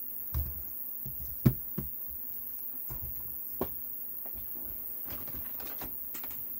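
Handling noise of a battery pack of cylindrical lithium-ion cells in plastic holders being moved and set down on a silicone work mat: a few soft knocks, the loudest about a second and a half in, then light scraping near the end, over a faint steady hum.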